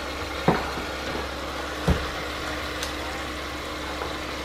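Ground beef sizzling as it browns in an oiled pot, over a steady low hum, with two sharp knocks about half a second and two seconds in.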